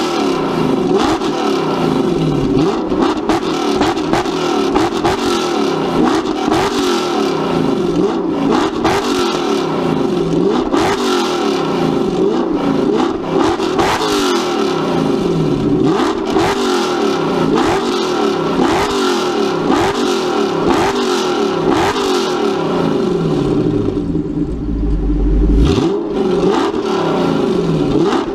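1994 Chevrolet Corvette ZR-1's LT5 5.7-litre DOHC V8 running and being revved again and again, the revs rising and falling repeatedly, heard from behind at the quad exhaust tips. A brief deep rumble comes near the end.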